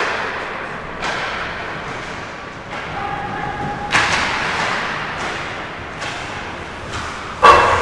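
Ice hockey play: a series of sharp knocks and thuds from puck, sticks and players hitting the boards, five or so over several seconds, the loudest near the end, each trailing off in the rink's echo.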